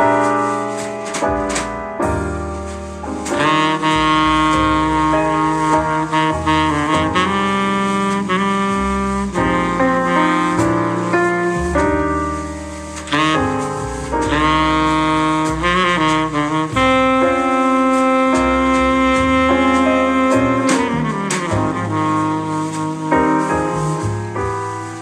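Jazz played back through an Onkyo FR-7GX mini system and its D-SX7 bookshelf speakers: a saxophone plays the lead in long held notes over piano and double bass.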